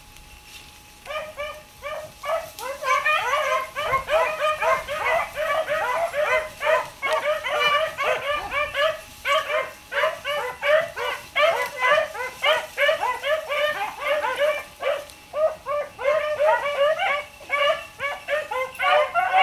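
A pack of hunting hounds baying: rapid, overlapping barks that start about a second in and go on almost without a break.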